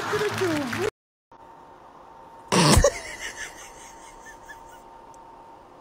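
Background music with laughter, cut off just under a second in. Then a cat sneezes once, short and loud, in a quiet room.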